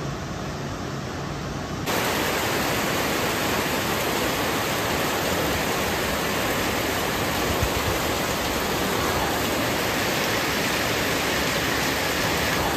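Heavy rain pouring down in a steady hiss, becoming louder and fuller about two seconds in.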